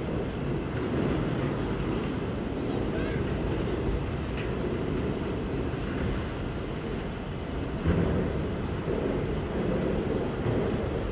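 CSX freight train rolling past: a steady low rumble of cars on the rails, with a sharper knock about eight seconds in.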